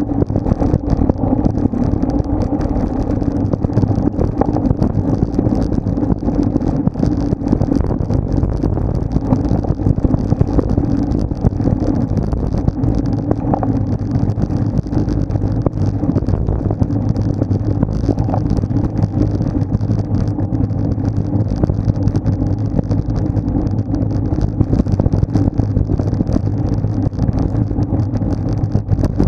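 Steady wind rush over the microphone of a bike-mounted action camera at riding speed, mixed with tyre and road noise.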